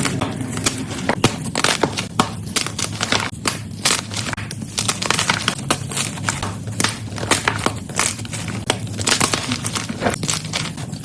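Block of gym chalk being crushed and crumbled, a dense run of irregular crunches and crackles.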